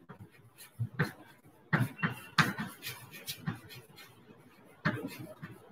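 Chalk writing on a blackboard: a dozen or so irregular sharp taps and short strokes as the letters are written.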